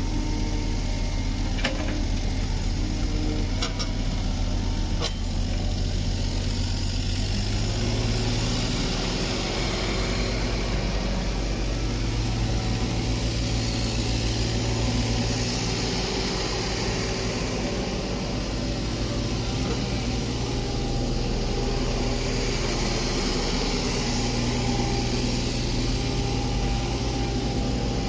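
Kubota U30 mini excavator's diesel engine running steadily while the hydraulics work the boom and arm, the engine note rising a little about eight seconds in. A few light clicks in the first five seconds.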